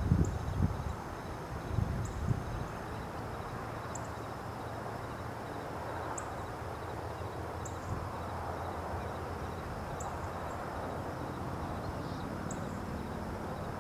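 Outdoor evening ambience: a steady low rushing background with short, high chirps every couple of seconds.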